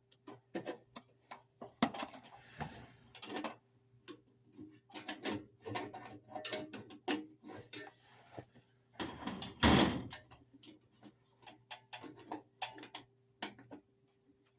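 Irregular clicks, taps and light rattles of hands working on furnace parts during a repair, with a louder scrape or rustle about ten seconds in. A faint steady hum runs underneath.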